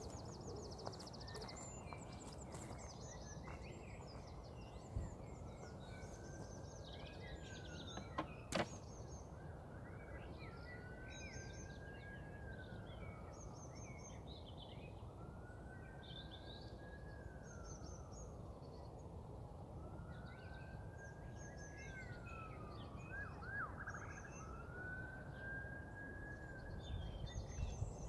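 A faint wailing siren, its pitch slowly rising and falling in long sweeps every four to five seconds. Small birds chirp and sing over a steady background hum.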